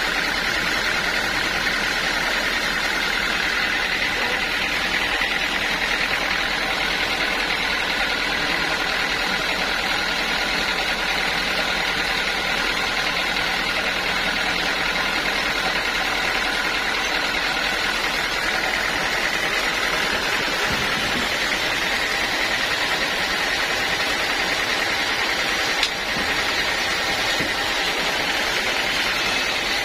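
Sawmill saw running steadily, a constant high-pitched whine over machine noise, with one brief knock near the end.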